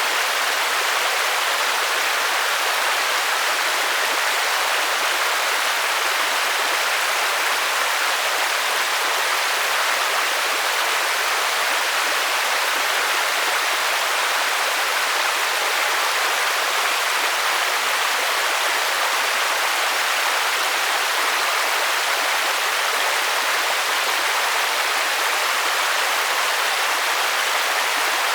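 Steady rain white noise: an even, unbroken hiss, mostly high and mid-pitched with hardly any low rumble, and no single drops or changes standing out.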